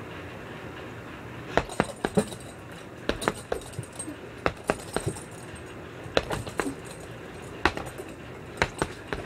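Boxing gloves punching a hanging heavy bag in irregular quick combinations of sharp slaps, with the bag's chain clinking. The punching starts about a second and a half in.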